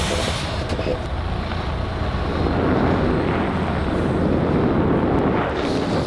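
Semi-truck moving slowly through packed snow, its diesel engine running with a steady rumble and a noisy rush that grows a little in the second half; the truck is not yet warmed up.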